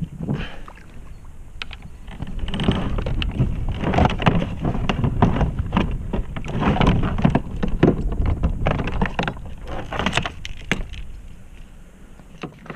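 Water sloshing and knocking against a plastic kayak hull, with wind rumbling on the microphone, in irregular bursts that ease off near the end.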